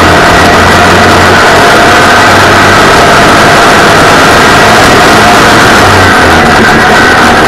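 Onboard sound of a 602 cm3-class dirt-track racing buggy at speed: its engine running hard at steady revs under heavy wind and track noise, loud enough that the recording is clipped.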